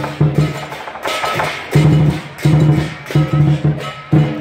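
Lion dance percussion: a big drum beating a loud, uneven pounding rhythm with cymbals crashing on the strokes.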